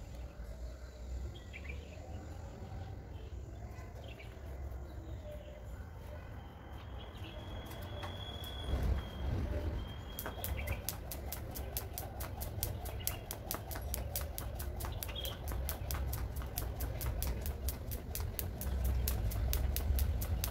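A skipping rope slapping the ground in a steady rhythm, a few times a second, starting about halfway through. Birds chirp now and then in the first half.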